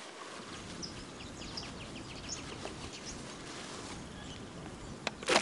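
Steady open-air background noise with faint, quick bird chirps, and one sharp knock just before the end, the loudest sound.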